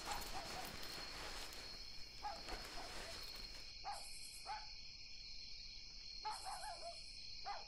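Faint rustling of cotton shirts being picked up and laid down on a bed, heaviest in the first half. A steady high-pitched background whine runs underneath.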